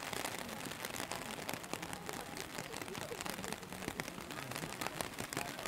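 Steady rain, an even patter thick with many sharp ticks of individual drops striking close by.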